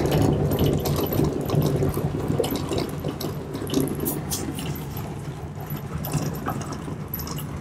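Truck driving on a wet gravel road, heard from inside the cab: a steady engine hum under the hiss of tyres on wet gravel, with frequent small ticks.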